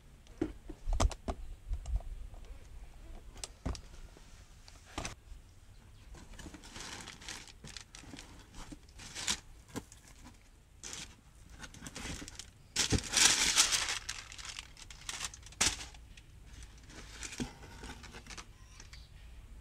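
Cardboard box flaps knocked and handled, then packing paper crinkled and pulled aside in rustling stretches, loudest a little past halfway.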